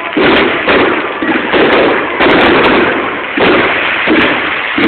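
Aerial fireworks shells bursting overhead in quick succession: about eight loud bangs, each one fading before the next.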